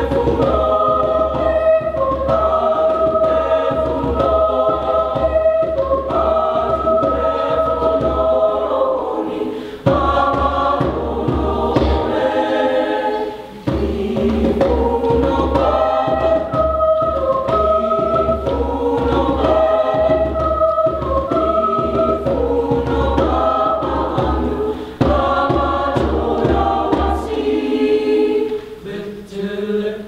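Mixed choir of young men's and women's voices singing in parts, with short breaks between phrases about ten and thirteen seconds in.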